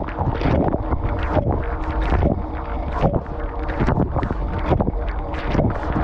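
Dishwasher spray arms throwing water against the tub walls and rack, heard from inside the running machine: a continuous rushing hiss with irregular louder gushes as the jets sweep past, over a steady low hum.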